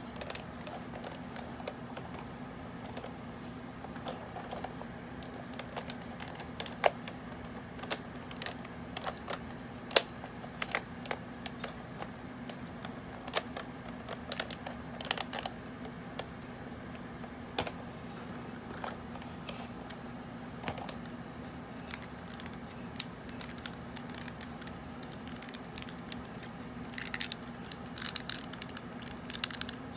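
Irregular plastic clicks and clacks from vintage Transformers G1 toys being handled and worked: a toy truck trailer's parts and the Hot Rod car. A cluster of clicks comes near the end, over a steady low hum.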